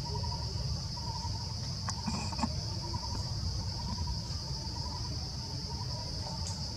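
Insects droning steadily at one high pitch over a low rumble, with a brief faint squeak about two seconds in.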